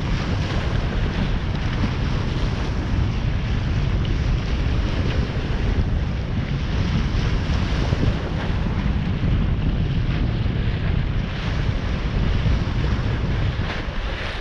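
Steady wind rumbling on the microphone over the rush of waves.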